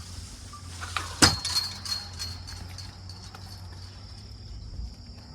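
Crickets chirring in a steady high drone. About a second in comes one sharp knock, followed by a few lighter clinks.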